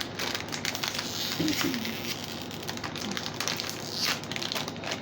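Plastic snack wrapper crinkling and crackling as it is handled and opened, in many small irregular clicks.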